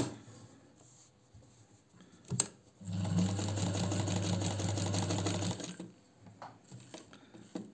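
Singer 216 electric sewing machine stitching in a short run of about three seconds: a click a little over two seconds in, then the motor and needle mechanism running with a steady hum and fast even ticking, stopping near the end.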